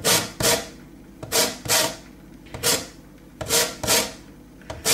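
A lime being zested on a domed stainless-steel grater. The fruit is rubbed across the metal teeth in short rasping strokes, about eight of them, often in pairs.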